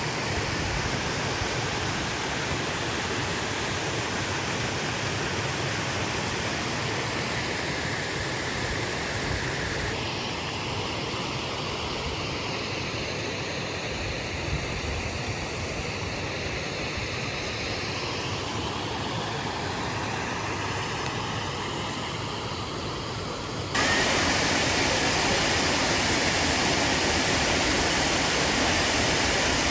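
Flowing stream water rushing steadily, with a sudden jump to a louder stretch of water near the end.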